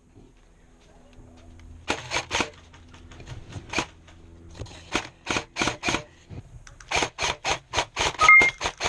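Airsoft guns firing single shots as sharp cracks: a few spaced shots at first, then a quicker string of about five shots a second near the end. A short beep sounds among the last shots.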